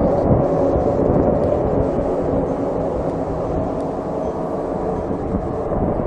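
Steady low rumbling drone with faint held tones, slowly getting quieter, presented as a strange sound coming from the sky.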